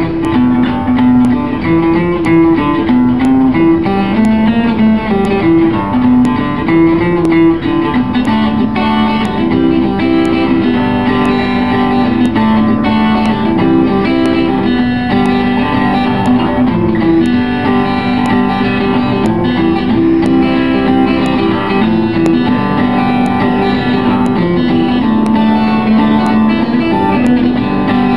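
Acoustic guitar playing a bluegrass boogie, with a steady run of picked notes.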